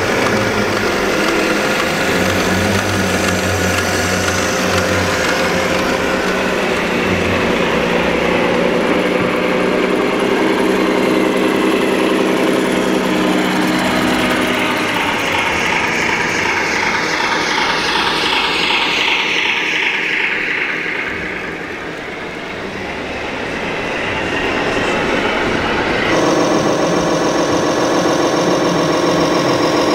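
Diesel-truck engine sounds from 1:8 scale RC model trucks, running steadily over crowd chatter. A long falling whine sounds in the middle, and about four seconds before the end it cuts to a different engine idling.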